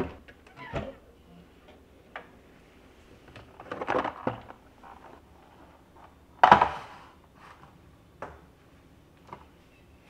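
Kitchen cabinet door opening and glass condiment bottles and a clear plastic bin being handled: scattered knocks and clatters, with a short rattling run about four seconds in. The loudest knock, about six and a half seconds in, is a tall glass bottle being set down on a plastic tray on the counter.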